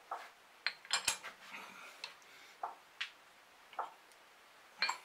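Scattered light clicks and metallic clinks, about eight of them at uneven intervals, from hands handling metal parts of a lathe and die-holder jig.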